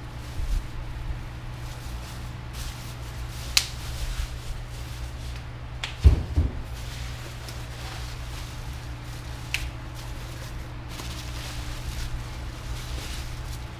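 Scattered sharp clicks and knocks of parts and packaging being handled while new ATV control arms are unboxed, the loudest pair of knocks about six seconds in, over a steady low hum.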